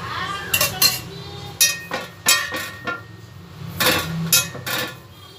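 Stainless steel plate knocking and ringing about ten times in irregular succession as a hand rubs ghee over it, with a faint rubbing sound between the knocks.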